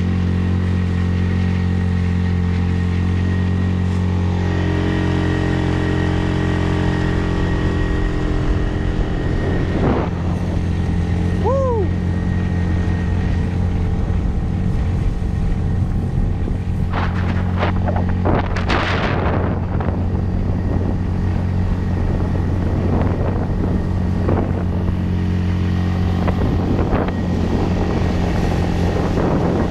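6 hp Storm F6 outboard motor running steadily at high throttle, driving an inflatable boat on the plane. A few brief splashes of water against the hull come past the middle.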